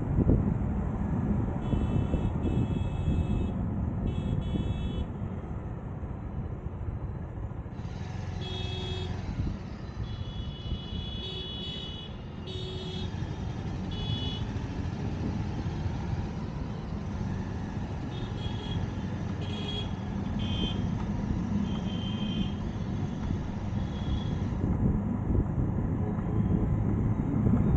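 Road traffic heard from a moving vehicle: a steady low rumble of engines and road noise, with other vehicles' horns honking in short toots again and again through much of the stretch.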